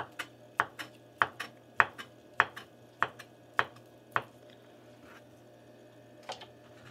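Chef's knife slicing through rolled deli turkey and knocking on a wooden cutting board, about one cut every 0.6 s, each a sharp knock with a lighter tap after it. The cutting stops after about four seconds, with a single softer knock near the end.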